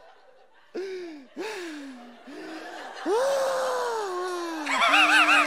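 One person laughing in drawn-out vocal whoops that fall in pitch, with a long held falling note and then a quick warbling laugh near the end.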